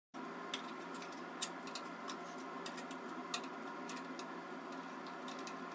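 Faint, irregular light clicks and ticks over a steady hum.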